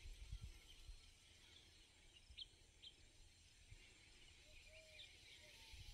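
Near silence outdoors, with a few faint, short bird chirps in the middle and a faint call near the end.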